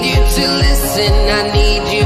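Background pop music: a deep kick drum that falls in pitch, about two beats a second, under sustained synth chords.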